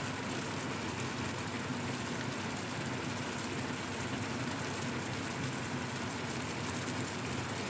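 Thai green curry simmering in a frying pan: a steady bubbling hiss with a low hum under it.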